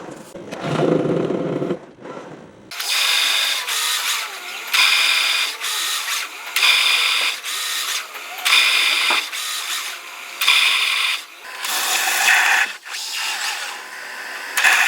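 CNC aluminum cutting saw working in repeated cycles. A loud, high-pitched cutting burst comes about every two seconds, with a ringing tone in it. The sound changes abruptly a few seconds in, from a lower-pitched machine sound to the repeating cuts.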